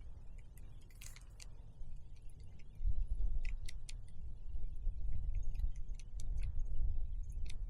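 Light metallic clicks and jingles, like gear or keys being carried, over a low rumble on the microphone that grows louder about three seconds in.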